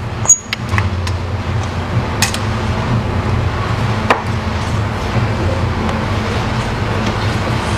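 A few sharp metal clicks and knocks from handling a manual tornado potato spiral cutter: one loud click at the start, more about two and four seconds in. A steady low hum runs underneath throughout.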